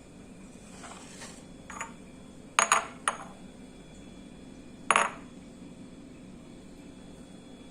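Kitchenware clinking: a handful of sharp clinks of a utensil against a dish, each with a short metallic ring. There is a faint one near two seconds in, a quick cluster of three just after, and a last, loudest one about five seconds in.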